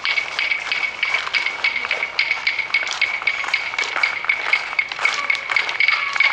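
Burning straw and dry bamboo of a newly lit tondo bonfire crackling and snapping, several sharp irregular pops a second, with a steady high whine underneath.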